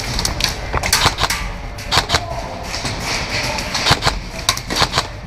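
Irregular sharp cracks and clicks of airsoft guns firing during close-quarters play, with no steady rhythm.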